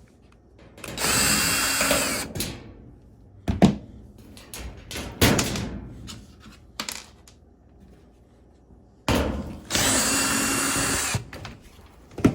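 Power drill spinning bolts out of a dryer's sheet-metal back panel, in two runs of about one and two seconds, with short knocks and clicks between them.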